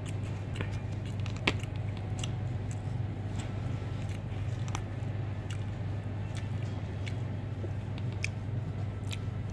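Eating sounds: a plastic fork clicking and scraping in a plastic takeaway container of fried noodles, with chewing, as scattered short clicks, one louder about one and a half seconds in. A steady low hum runs underneath.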